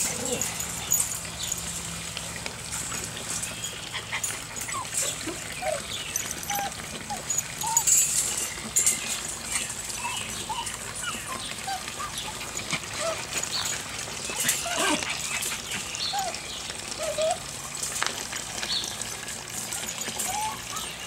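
A litter of puppies giving short, high whimpers and squeaks, scattered throughout, with occasional rustling and light knocks.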